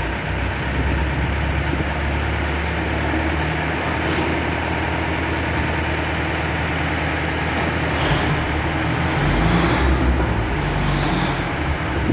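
Heavy diesel machinery engine running steadily with a low drone, getting somewhat louder about nine seconds in, with a few short higher-pitched sounds near the end.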